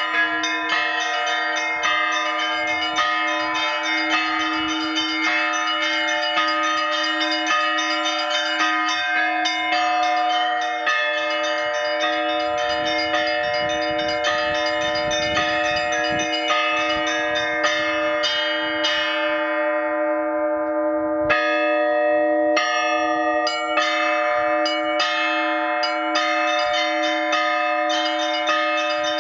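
Russian Orthodox zvon. A set of small and middle bells is struck in quick patterns from hand-held ropes over steady, evenly repeated strokes of the lowest bell, a new 120 kg blagovestnik cast by Vladimir Shuvalov's foundry. About two-thirds of the way through, the small bells fade out for a moment while the big bell keeps its beat, then they come back in.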